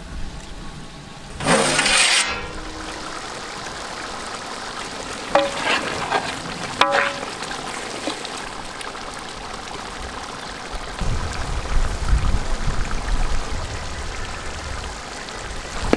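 Large pot of prawn curry simmering over a wood fire, a steady bubbling hiss, with a brief loud rush of noise about one and a half seconds in.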